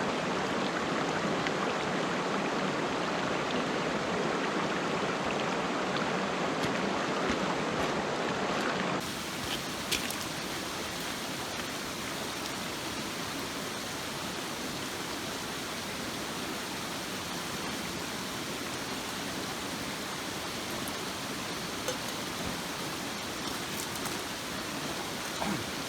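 Steady rushing water of a river in a gorge. About nine seconds in it abruptly drops a little in level and turns brighter and hissier, with a few faint clicks later on.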